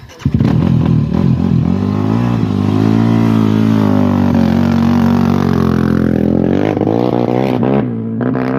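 Racing ATV engine revving hard under acceleration. It comes in abruptly, and its pitch climbs and dips for several seconds before easing off near the end.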